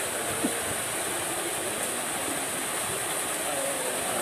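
Steady, dense splashing of a crowd of milkfish thrashing and leaping at a pond's surface as a harvest net hems them in. There is a single sharp splash or knock about half a second in.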